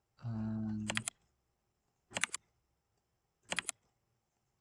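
Computer keyboard and mouse clicking in three short bursts of three or four sharp clicks, about a second and a half apart, while a MAC address is copied byte by byte into code. A man gives a brief steady hum near the start.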